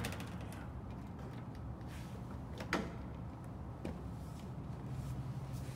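A few faint knocks and clicks from hands working on the car's plastic front bumper and its fasteners, the clearest about halfway through, over a steady low background hum.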